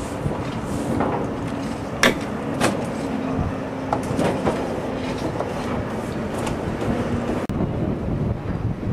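Machinery rumbling steadily, with a faint hum that comes and goes and scattered sharp knocks and clicks, the loudest about two seconds in.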